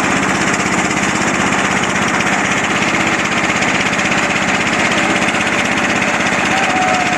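Small motor boat's engine running steadily at constant speed.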